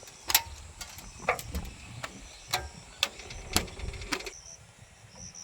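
A series of about six sharp clicks or knocks, irregularly spaced half a second to a second apart over a low rumble, stopping about four seconds in.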